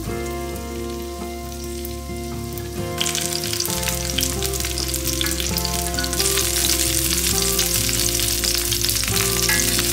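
Zucchini rounds sizzling in hot olive oil in a pan. The sizzle gets louder about three seconds in and again around six seconds, as more slices are laid into the oil.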